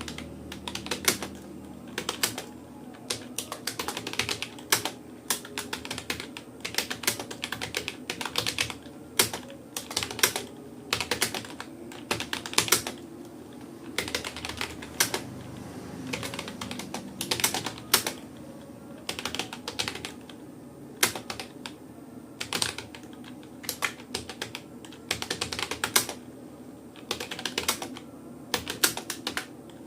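Typing on a Rapoo computer keyboard: a continuous, irregular run of key clicks, with occasional louder keystrokes standing out.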